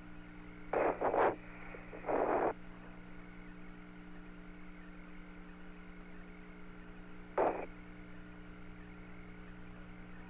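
Open Apollo radio communications loop between transmissions: a steady hum and hiss, broken by three short bursts of static, twice in the first few seconds and once more about seven seconds in.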